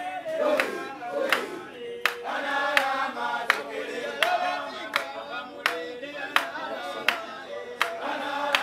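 A group of voices singing together in chorus, kept in time by sharp hand claps, about three claps every two seconds.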